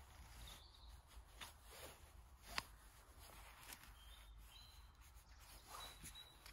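Quiet woodland ambience with faint, thin bird calls and a few light clicks and snaps, the sharpest about two and a half seconds in.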